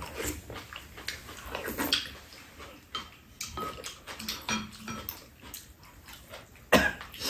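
Two people eating soup: slurps, and wooden spoons knocking and scraping against ceramic bowls, with one sharper, louder clack near the end.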